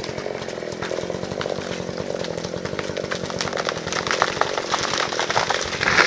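Two-stroke chainsaw idling: a steady, rapid putter after the throttle has been let off.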